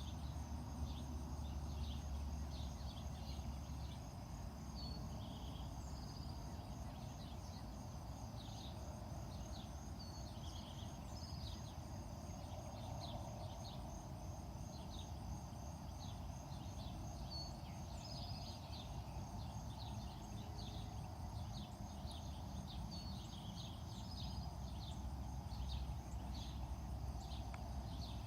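Many short, irregular bird chirps over a steady low rumble.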